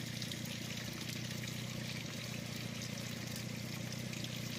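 Water pouring and trickling out of a flooded vehicle's floor drain holes into a muddy puddle below, a steady splashing stream, over a steady low hum.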